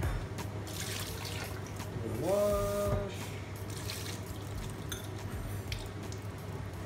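Running water, as from a kitchen tap, with a few faint clicks and a short tone that rises and then holds about two seconds in.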